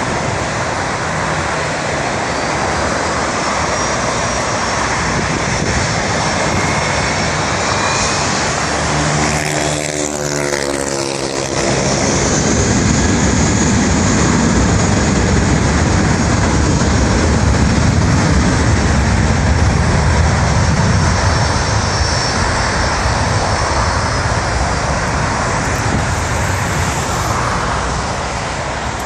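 Jet airliner engines at takeoff thrust, a steady rumble with a high whine that grows louder about twelve seconds in as the plane rolls down the runway, over the hiss of road traffic.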